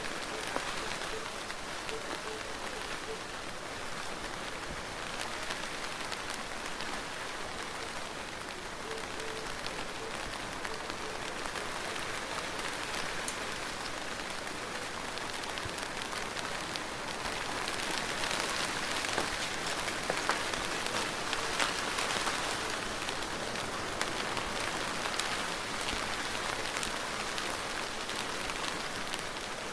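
Steady rain falling and pattering on surfaces, with many small drop ticks, swelling a little louder about two-thirds of the way through.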